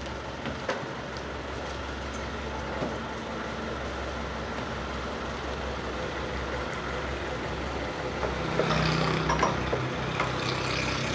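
Bus engine idling with a steady low hum; about eight and a half seconds in a deeper hum joins and it grows a little louder.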